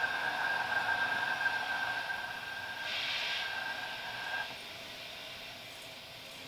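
Sustained experimental noise music: a steady high tone held over a band of hiss, with a brief burst of brighter hiss about halfway through. Both cut off suddenly about two-thirds of the way in, leaving a quieter hiss.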